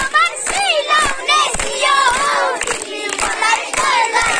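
A group of young children singing and shouting out together loudly, clapping their hands along.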